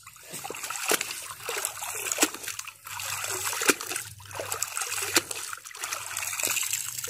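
River water splashing and sloshing as a cloth bag holding live fish is dipped and swished in the shallows, with a string of short splashes. Near the end the bag is lifted out and water streams and trickles from it back into the river.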